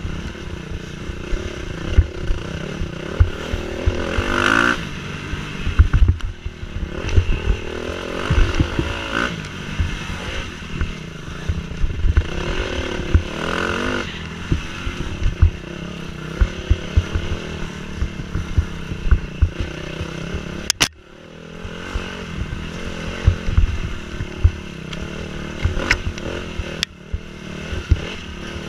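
Dirt bike engine heard up close from on board, revving up and down as it is ridden along a rough woods trail, with frequent knocks and clatter from the bumps. About two-thirds of the way through, the sound drops away briefly with a sharp click before the engine picks up again.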